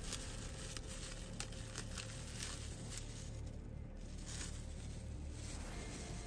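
Faint crinkling and tearing of the wrapping on preserved duck eggs as it is handled and pulled open, with small scattered clicks.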